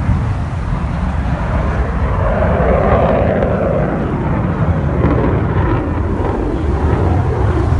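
Steady, loud noise of a fixed-wing airplane in flight, with a heavy low rumble and a swell in the middle.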